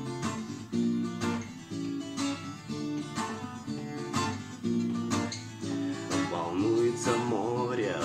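Acoustic guitar strumming chords in an instrumental passage between sung lines.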